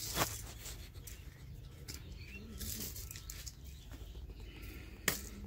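Plastic packets rustling and crinkling in short spells as bagged candy and plastic toys are handled, with a couple of light clicks, over a low steady hum.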